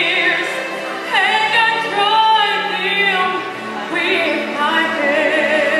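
A young woman singing solo into a microphone, holding long notes with vibrato; about a second in she sweeps up into a new phrase.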